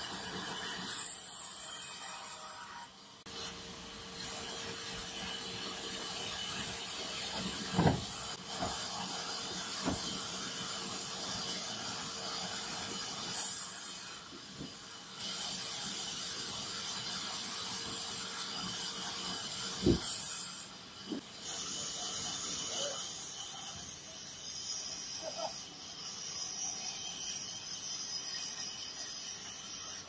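A large bandsaw runs and cuts through tree logs: the hissing rasp of the blade in the wood comes and goes with each cut, over the machine's steady hum. There are a few sharp knocks, about 8, 10 and 20 seconds in.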